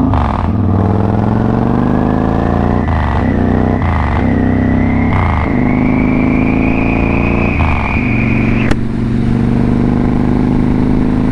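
Victory Hammer's V-twin engine accelerating hard through the gears, its note breaking briefly several times at the shifts. A whine rises slowly in pitch alongside it and cuts off suddenly about nine seconds in, after which the engine runs steadily.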